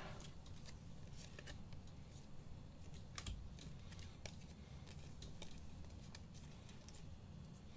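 Faint scattered clicks and rustles of a stack of 2021 Donruss Elite trading cards being handled and slid against one another as they are flipped through.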